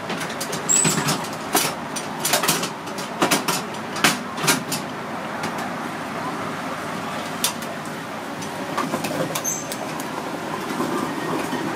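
Cast-iron taiyaki molds on long metal handles clanking against the metal rack as they are turned and opened. A quick run of sharp metal knocks and clinks comes in the first half, then only a few isolated clicks over steady shop noise.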